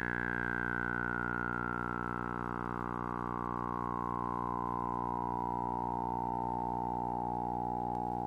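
Synthesizer holding a steady droning chord, with a bright resonant tone that slides slowly down in pitch throughout, like a filter sweep closing.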